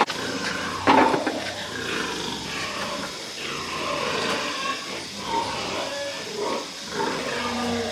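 Pigs vocalising, with a loud cry about a second in and then continuous grunts and squeals.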